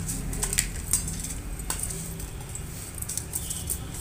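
A few light clicks and clinks as a wet papad is laid and pressed onto a steel plate, over a low steady hum.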